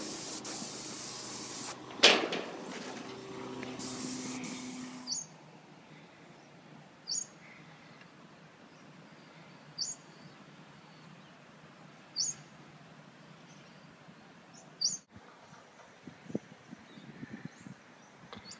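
Spray wand applying white roof-membrane paint, a loud steady hiss with a sharp click about two seconds in, stopping about five seconds in. Then a bird gives short rising chirps, repeated about every two and a half seconds.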